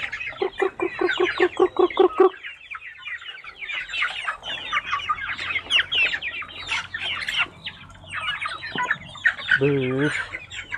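A flock of young ayam kampung super chickens, about 65 days old, peeping and clucking as they crowd the trough and feed: many short falling chirps overlapping throughout. A quick run of low clucks comes about half a second in, and a short low wavering call near the end.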